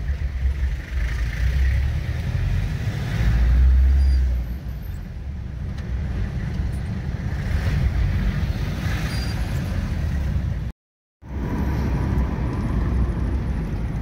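Engine and road noise of a moving car heard from inside the cabin: a steady low rumble that swells briefly about four seconds in. The sound cuts out completely for a moment about eleven seconds in.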